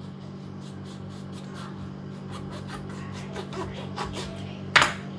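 Kitchen knife sawing through a whole lemon, the peel giving a run of small crisp crackles and rasps, then a sharp knock near the end as the blade comes through onto the wooden cutting board.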